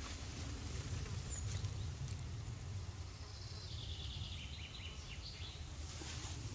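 Outdoor ambience with a steady low wind rumble, a brief high chirp about a second in, and a high chirping call midway that sounds like a bird or insect.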